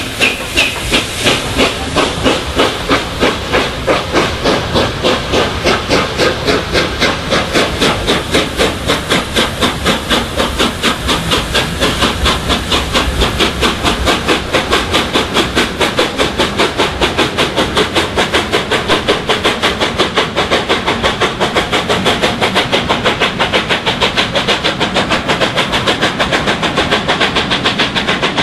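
LNER A4 Pacific No. 4464 Bittern's three-cylinder steam exhaust, with loud, regular chuffs over a steam hiss as the locomotive accelerates away with its train. The beats quicken from about three a second to about six.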